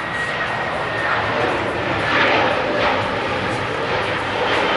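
Boeing 737-800's two CFM56-7B jet engines at takeoff thrust as the airliner rolls and lifts off: steady jet engine noise, with a thin high fan whine that fades out about a second in and a few louder swells after.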